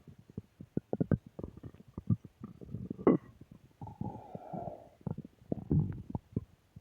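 Human stomach growling: irregular gurgles and small popping clicks, with a louder gurgle about three seconds in followed by a drawn-out, higher-pitched gurgle lasting about a second.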